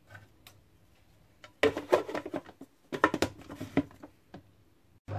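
Clear plastic lid of a Siemens food processor being fitted and locked onto its bowl: a quick cluster of plastic clicks and knocks. Right at the end the motor starts with a rising whine.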